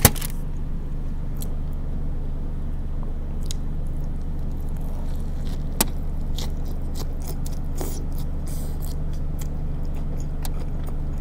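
Close-up mouth sounds of eating a burger: a bite about six seconds in, then scattered chewing clicks and crackles. A steady low hum runs underneath.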